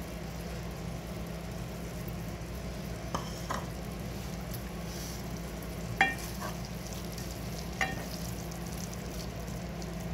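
A wooden spoon stirring thick urad dal in an aluminium pot on a gas stove, with a few short knocks of the spoon against the pot that ring briefly, about three, three and a half, six and eight seconds in. A steady low hum runs underneath.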